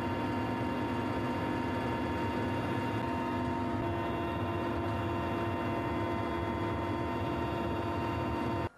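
Helicopter heard from inside the cabin: the turbine engines and rotor make a loud, steady drone with a steady high whine through it. It cuts off abruptly near the end.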